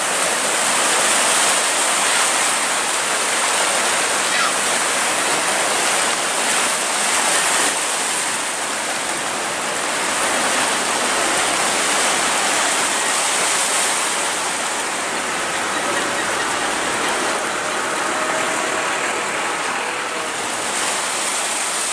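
Steady rush of sea surf washing over rocks, an even hiss that does not let up.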